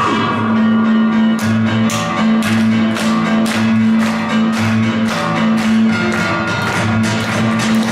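Music with a guitar-like plucked-string sound, steady bass notes and an even beat of about two strokes a second.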